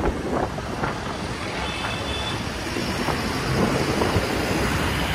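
Night city traffic heard from a moving two-wheeler, with a goods truck running close alongside: a steady rumble of engines and tyres.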